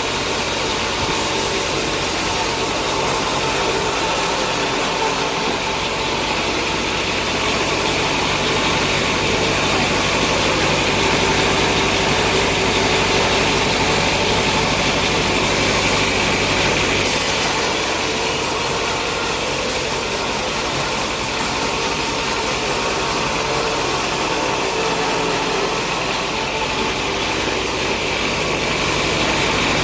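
Sawmill machinery running steadily, a continuous mechanical drone. The higher hiss thins out about five seconds in, comes back around the middle, and thins again near the end.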